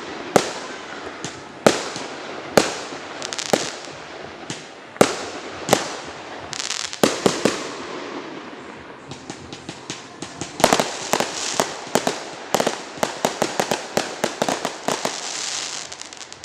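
Fireworks going off: loud sharp bangs at irregular intervals with crackling between them. About halfway through they turn into a fast run of many pops and crackles, which ends in a hissing swell just before the sound falls away.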